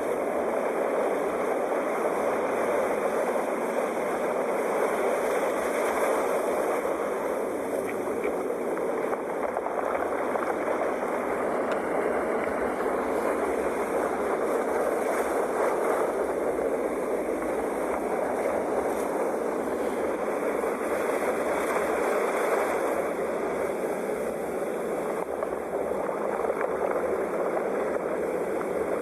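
Sea waves washing, a steady surf noise that swells gently every few seconds without distinct breaking crashes.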